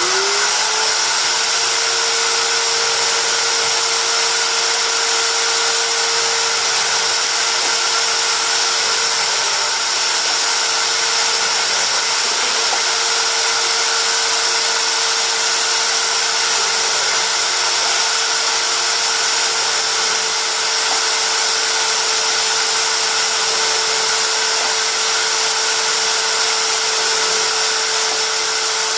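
Hammer drill clamped in a vise, running in reverse with a large bit used to cut the primer-pocket crimps out of NATO .223 brass cases. It spins up to speed at the start, then holds a loud, steady whine.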